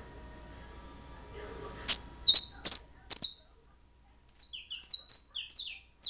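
Domestic canary calling: four loud, sharp chirps that slide downward, starting about two seconds in, then after a short pause a quicker string of chirps, some dipping lower in pitch.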